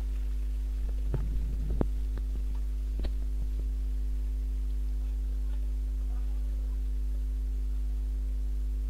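Steady electrical mains hum, with a few faint clicks and taps in the first few seconds.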